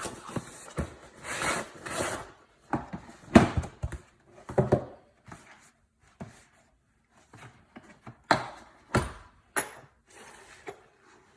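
Tools and parts of a tire repair kit being handled: irregular knocks, clacks and rubbing with short pauses between them. The loudest knock comes about three and a half seconds in, and a few sharp ones follow near the end.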